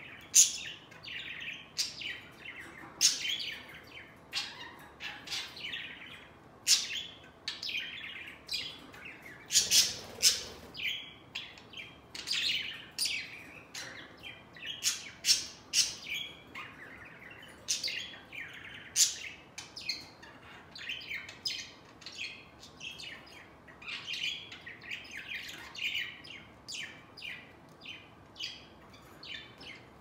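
Budgerigars chattering in a steady stream of sharp, high chirps and squawks, several calls a second.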